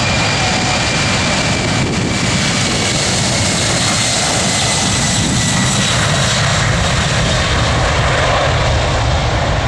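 Boeing 747-400F freighter's four jet engines at take-off power on the runway roll: a loud, steady jet roar with a high whine that slowly drops in pitch.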